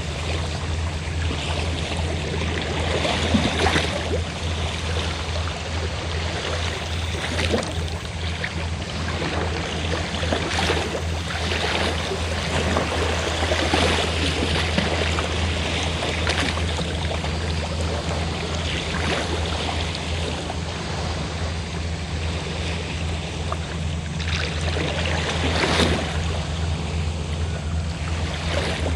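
Sea waves washing, swelling several times, over the steady low drone of a fishing boat's engine.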